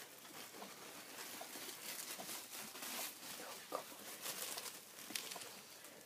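Faint rustling and scratching as two Shorkie puppies shuffle about in a soft fabric dog bed, with a few brief, faint higher sounds.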